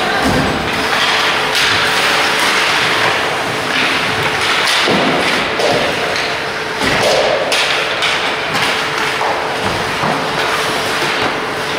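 Ice hockey play in a rink: skates scraping on the ice, with several dull thumps and knocks spread through it, over a steady hum.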